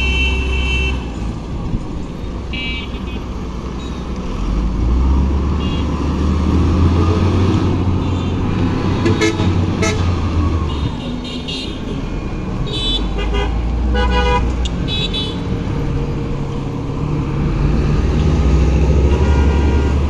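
Roadside traffic, with vehicles passing and tooting their horns several times, most of the toots coming in a cluster past the middle. Underneath runs the low, steady sound of a wheel loader's heavy diesel engine working, which swells in stretches.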